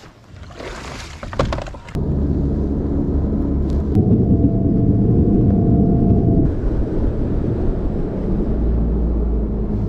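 A bass boat motor running with a steady low drone that starts abruptly about two seconds in, after a brief rustle.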